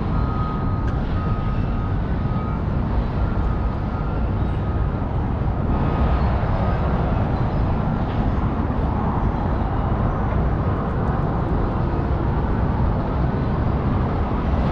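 Steady street traffic noise, a continuous wash of passing cars.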